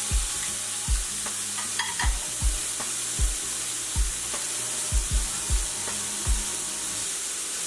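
Pork loin searing fat side down in hot bacon grease in a cast iron skillet: a steady sizzle, with irregular low thuds every half second or so.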